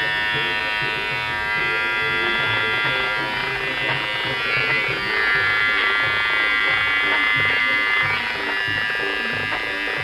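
Cordless electric hair trimmer buzzing steadily as it cuts close through hair.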